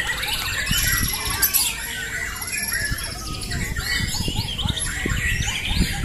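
Many caged white-rumped shamas singing at once in competition: a dense, unbroken chorus of overlapping whistles, rapid trills and chattering phrases.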